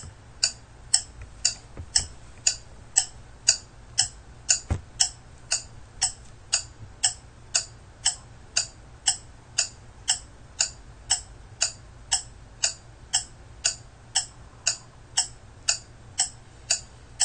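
Clock-ticking sound effect marking a countdown timer, a steady tick twice a second.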